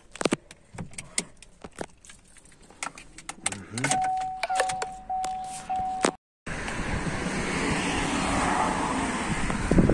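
Clicks and key jangling inside a Chevrolet's cabin, then the car's warning chime beeping four times at one steady mid pitch. After a sudden break, a steady rushing noise with a few thumps near the end.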